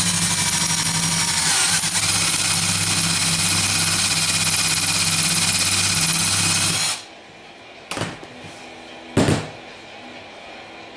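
Electric drill running under load as an extra-long 1/4-inch bit bores a converter fill hole into a Powerglide transmission pump's stator support: a steady whine over a low hum. It stops about seven seconds in, and two short metallic clinks follow.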